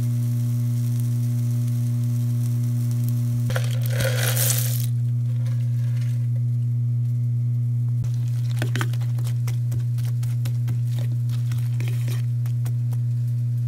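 A loud, steady low hum runs without a break, with light crackling and scattered clicks of cooking over it. A brief hissing spell comes about four seconds in, and more clicks follow in the second half.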